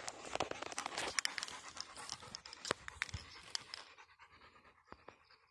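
Chocolate Labrador retriever panting hard, with scattered sharp clicks and rustling over the first few seconds, the sound fading quieter toward the end.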